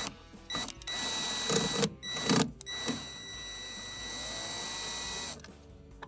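Drill turning a flexible extension bit to back out a screw: the motor whirs in a few short spurts, then runs steadily for about two and a half seconds and stops. A couple of knocks come in between the spurts.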